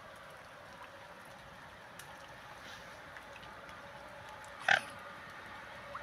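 Mute swan giving one short, loud call about three-quarters of the way through, over faint steady background hiss.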